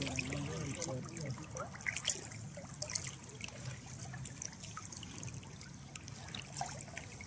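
Lake water lapping at the shore, with small trickling splashes throughout.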